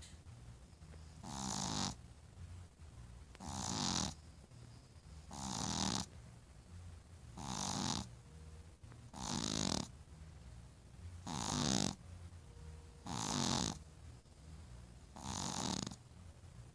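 Steady snoring, one long snore about every two seconds: eight in all, each building up and cutting off with a hiss.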